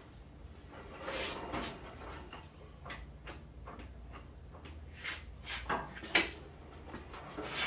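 Scattered clunks and scrapes of heavy metal being shifted and guided by hand, with a scraping stretch about a second in and one sharp knock about six seconds in.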